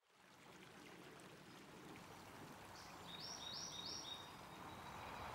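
Faint sound of a shallow creek running over stones, fading in from silence, with a bird calling a short run of high repeated notes about three seconds in.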